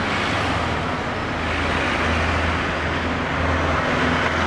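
Steady road traffic noise with a low engine hum underneath.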